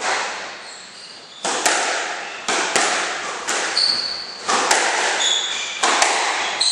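Squash rally: a string of sharp, echoing hits of the ball off rackets and the court walls, about every half second to second, with shoes squeaking briefly on the wooden floor.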